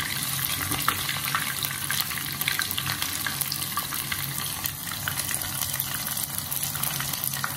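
Battered coral mushroom pieces deep-frying in a small pot of hot oil: a steady sizzle full of small crackling pops.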